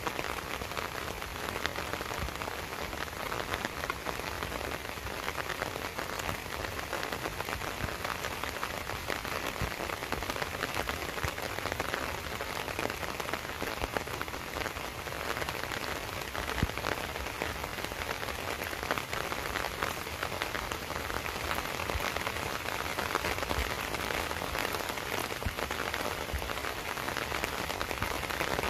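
Steady rain falling, a constant hiss dense with the ticks of separate drops striking close by, one a little sharper than the rest about halfway through.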